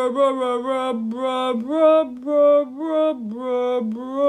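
A single voice singing a wordless tune in short notes that step up and down in quick succession.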